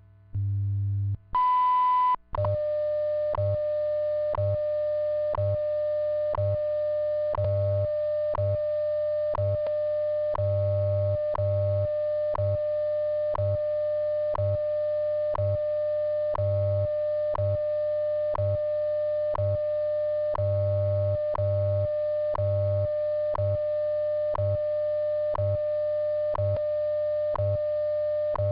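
WWV time-signal broadcast at the top of the minute. About a second in comes the 1000 Hz minute-mark tone, lasting just under a second. It is followed by a steady 600 Hz audio tone, broken once a second by the seconds tick, over a low 100 Hz time-code hum that pulses in long and short beats.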